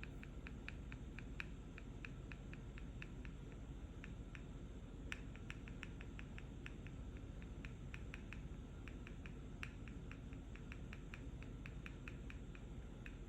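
Fingers tapping on a medicine pill box: quick, light, sharp taps, several a second. The taps thin out for about two seconds after the first couple of seconds, then pick up again. A steady low background hum runs underneath.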